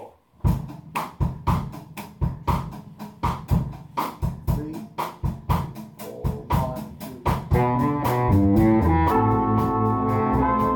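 Live band playing a bossa nova: a drum kit starts a steady groove about half a second in, with evenly spaced strokes a few times a second. About seven and a half seconds in, the horns and bass come in with held chords over the drums.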